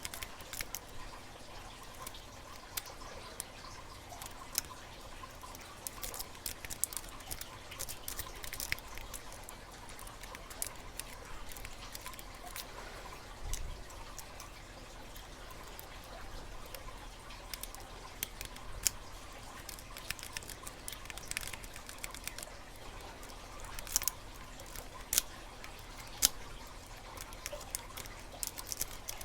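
Lock pick and tension wrench working the pins of a Master Lock padlock: faint, scattered small metallic clicks and scrapes, with a few louder clicks near the end.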